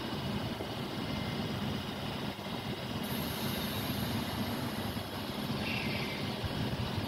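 Diesel multiple unit standing with its underfloor engines idling: a steady low rumble, with a faint high hiss joining about three seconds in.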